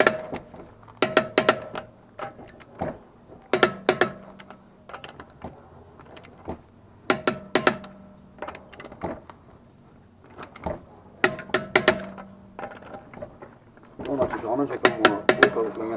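Torque wrench ratcheting on a car wheel's lug nuts: quick bursts of three or four sharp metal clicks, five times, about every three to four seconds.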